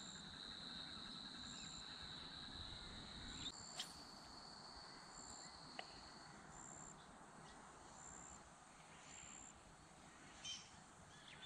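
Faint evening insect calls: a steady high trill with short, higher chirps repeating about every second and a half.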